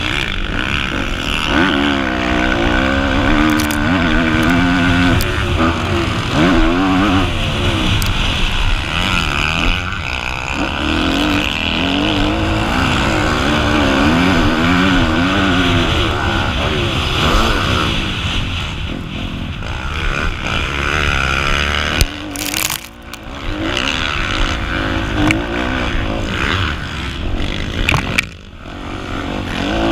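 Kawasaki KX250F motocross bike's single-cylinder four-stroke engine, heard onboard, revving up and down over and over as the rider opens and closes the throttle through the turns and straights. Twice in the last third the engine note drops away sharply for a moment, then picks up again.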